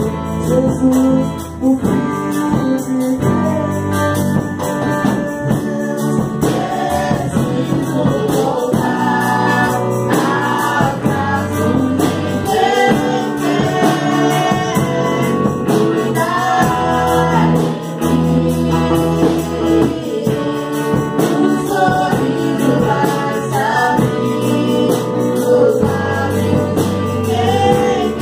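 A live worship song: several voices singing together into microphones, backed by strummed electric and acoustic guitars with a steady beat.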